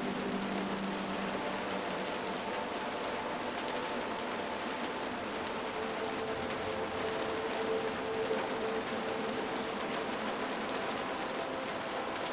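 Steady, even rain falling on a surface, with faint held tones of a soft ambient music pad underneath.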